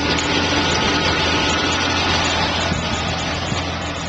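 350 Chevy small-block V8 idling steadily, with a hiss over it that eases off about halfway through.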